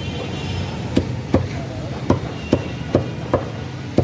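Meat cleaver chopping chicken on a round wooden butcher's block: about seven sharp chops, starting about a second in and coming roughly two a second, over a steady low hum.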